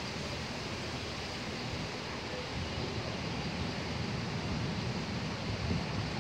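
Strong storm wind rushing through palm fronds and buffeting the microphone: a steady hiss over low, rumbling gusts that grow a little stronger in the second half.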